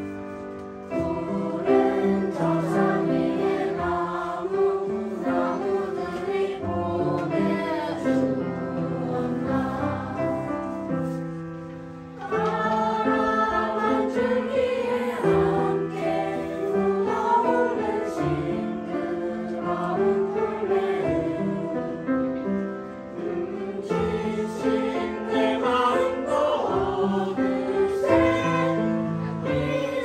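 A group of children and adults singing a song together to upright piano accompaniment. The singing breaks off briefly about twelve seconds in, then picks up again louder.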